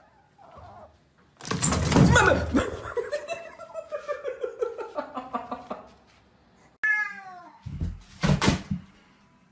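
Cat yowling: a long, loud, drawn-out call starting about a second and a half in that slowly falls in pitch, then more short, loud cat sounds near the end.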